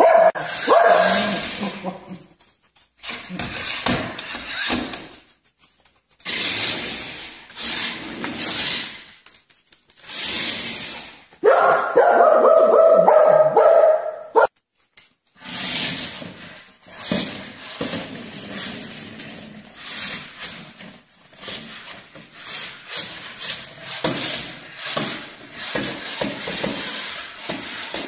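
A dog barking and making other vocal sounds, in several short stretches broken by sudden cuts.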